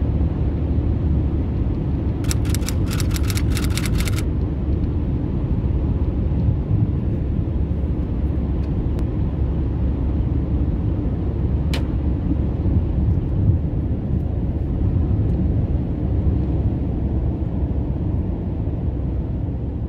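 Car driving at motorway speed: a steady low rumble of road and engine noise. A quick run of rapid ticks comes about two seconds in, and a single sharp click comes near the middle.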